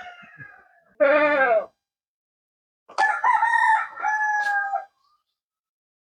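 Rooster crowing: a cock-a-doodle-doo of about two seconds that starts about three seconds in and ends on a long held note. A shorter, loud animal call with falling pitch comes about a second in.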